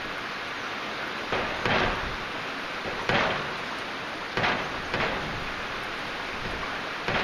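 Heavy rain falling in a steady hiss, with about six brief louder bursts at uneven intervals.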